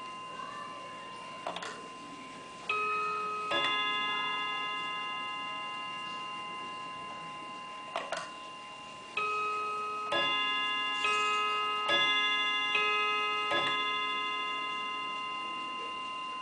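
August Schatz & Söhne wall clock chiming as its minute hand is turned by hand, with the movement ticking underneath. A couple of clicks from the hands are followed by two struck chime notes, then a run of six notes about a second apart, each ringing on and fading slowly.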